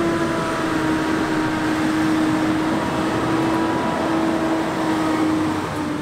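Valtra S416 tractor's 8.4-litre AGCO Power engine running steadily while pulling a cultivator, with a steady droning hum.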